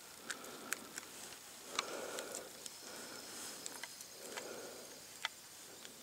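Soft crinkling and scattered sharp clicks of a nut butter tear pack being handled, with two longer rustling swells, about two seconds and four and a half seconds in.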